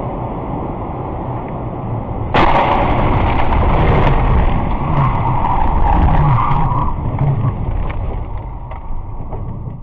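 Road noise from inside a car driving on wet asphalt. About two seconds in it jumps suddenly to a louder rushing noise that lasts several seconds, then eases off.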